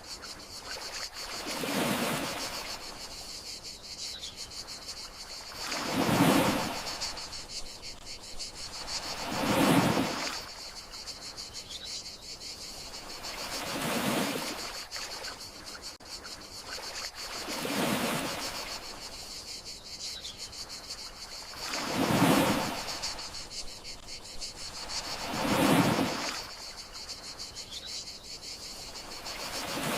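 Gentle sea waves washing onto the shore, one soft swell about every four seconds, over a steady high chirring of crickets.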